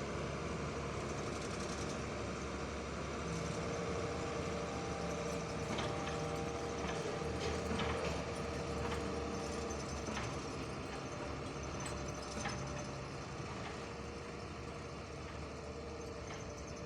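Engine of heavy earth-moving machinery running steadily, with a few short knocks.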